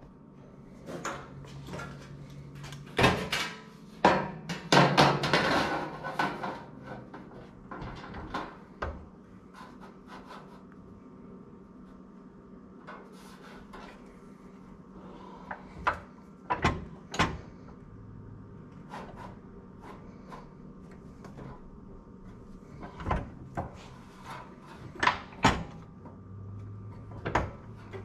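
Sheet metal being handled and worked on a manual bending brake: scattered metal knocks and clanks, with a busy run of rattling a few seconds in, then single sharp clacks spaced out.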